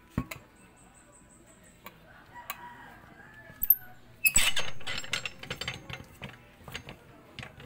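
Metal clicks and clanks from the screw clamp of an inner-tube vulcanizing press being handled and turned, with one loud harsh rasp about four seconds in that fades over under a second.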